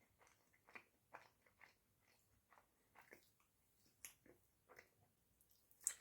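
A person chewing and biting a cream-filled pastry: soft, irregular mouth sounds a couple of times a second, with one sharper, louder click near the end.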